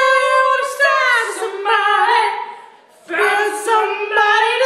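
A woman singing unaccompanied: two phrases of long held notes, with a short break of about half a second between them.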